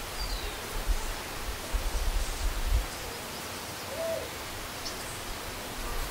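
Open-air ambience: a steady hiss with irregular low rumbles of wind on the microphone, loudest in the first three seconds. There is a faint high chirp near the start and a short call that rises and falls in pitch about four seconds in.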